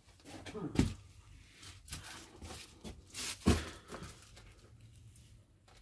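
Knocks and clatter of tools and parts during gearbox-removal work on a car. There are a few separate knocks, the loudest about three and a half seconds in, with quieter handling noise between them.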